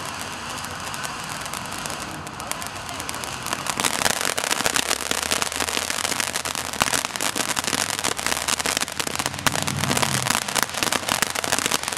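Black Cat Hot Sauce fountain firework spraying sparks with a steady hiss, turning into louder, dense crackling about four seconds in.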